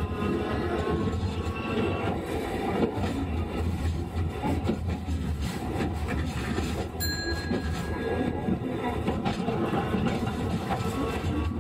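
Sapporo streetcar M100-type car running, heard from inside: a steady rumble of motors and wheels on the rails. A thin high tone is held for about a second and a half a little past the middle.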